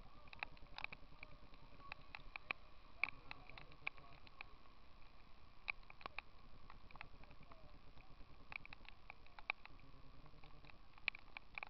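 Raindrops striking close to the microphone, making irregular sharp ticks a few times a second, over a faint steady hum.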